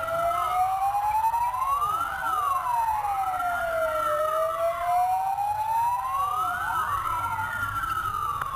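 Emergency vehicle siren wailing, its pitch rising and falling in slow cycles of about four to five seconds, with two wails overlapping out of step. A low engine and road rumble runs beneath.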